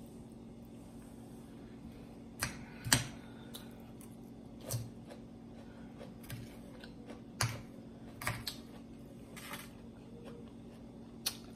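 Eating sounds: a metal fork clicking and tapping against a plate along with mouth sounds while chewing, about seven short sharp clicks scattered through, the loudest about three seconds in, over a faint steady hum.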